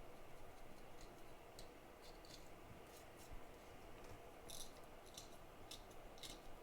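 Faint, short scratching strokes of a small blade scraping at a chip on a circuit board, coming irregularly, a few per second at most, with a slightly louder cluster about four and a half seconds in and another near the end.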